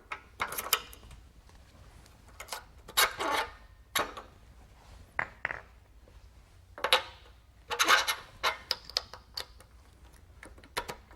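Irregular metal clinks, knocks and scrapes as a beading die is handled and fitted into the tooling of a power hammer during a die change.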